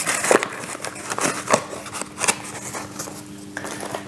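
Incense packaging being handled: a run of short taps, clicks and rustles, busiest in the first half. A faint steady hum runs underneath from about a second in.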